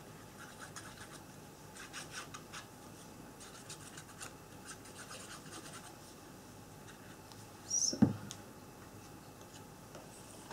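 Faint scratching and rustling of paper and a glue applicator being handled by hand on a cutting mat, with one louder knock about eight seconds in.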